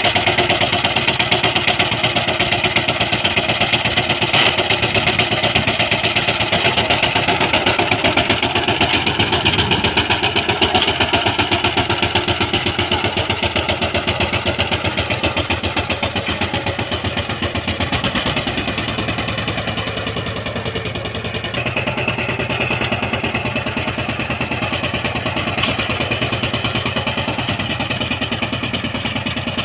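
Two-wheel power tiller's single-cylinder diesel engine chugging steadily at a fast, even beat. It runs under load while the rotary tiller blades churn dry field soil.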